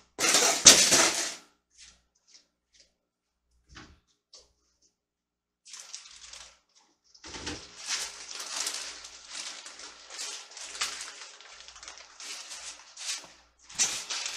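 A person moving about and then handling a large bag stuffed with bead packages: a loud burst of movement at the start, a quiet stretch with a few faint clicks, then continuous rustling from about seven seconds in.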